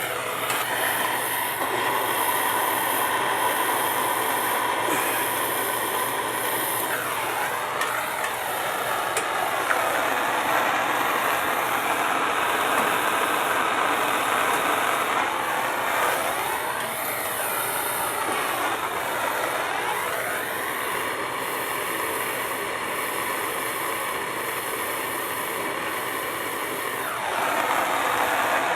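Plumber's gas torch flame running steadily while heating a copper pipe joint for soldering, its tone shifting several times as the flame is moved.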